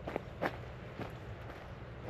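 Footsteps of a person walking, a few sharp steps about half a second apart, over a steady low background rumble.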